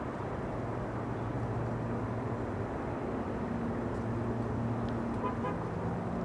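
A vehicle's motor runs with a steady low hum over a background rumble. Its held tone moves to a higher pitch about halfway through and drops somewhat near the end.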